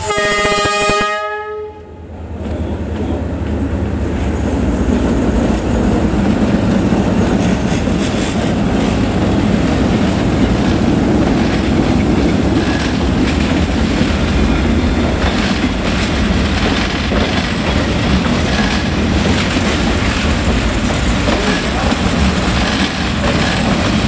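A D19E diesel-electric locomotive sounds one short horn blast, about a second long. Then the locomotive and its passenger coaches run past with a steady low rumble and wheels clacking over the rail joints.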